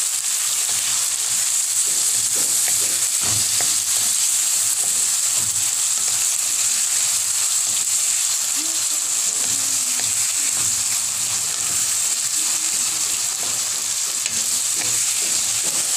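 Raw chicken pieces sizzling steadily in hot oil in a wok with sautéed onion, tomato, garlic and ginger, stirred with a wooden spatula that clicks and scrapes against the pan.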